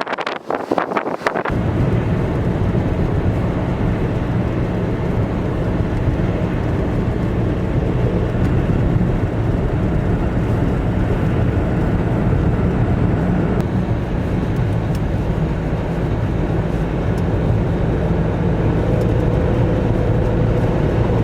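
Gusty wind buffeting the microphone for the first second or so, then the steady low rumble of a vehicle driving, engine and tyre noise.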